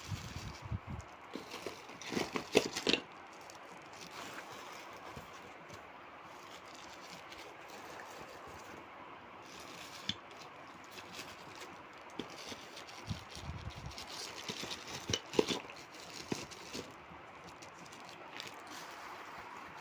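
Parcel packaging rustling and crackling as it is handled and opened, with two short clusters of sharp clicks and scrapes, about two seconds in and again about fifteen seconds in.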